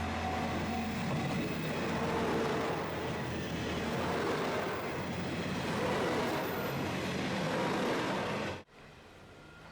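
Loud, steady rumble of a vehicle passing close by. It cuts off abruptly about eight and a half seconds in, leaving only quiet background.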